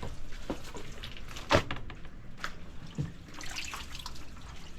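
Wet laundry being lifted out of a twin-tub washing machine's wash tub into its spin side: water dripping and splashing, with a few knocks, the sharpest about a second and a half in.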